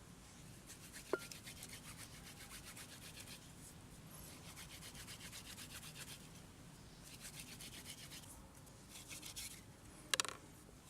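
Faint, fast rhythmic scraping strokes in several bouts with short pauses, like something being rubbed or rasped by hand. There is a sharp click about a second in and a louder knock near the end.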